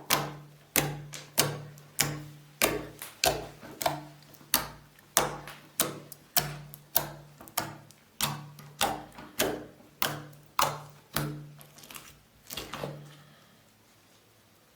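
A steady series of sharp clicks, about three every two seconds, each with a short low thud under it, stopping near the end.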